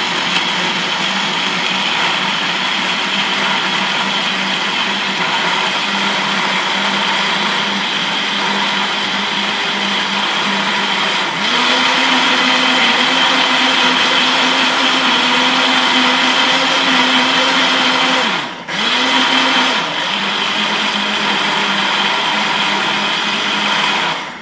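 Countertop blender with a glass jar running, mixing a thick milkshake of banana, milk and vanilla ice cream. The motor hum steps up to a higher, louder speed about eleven seconds in, dips and recovers briefly about eighteen seconds in, drops back to the lower speed a little later, and cuts off at the end.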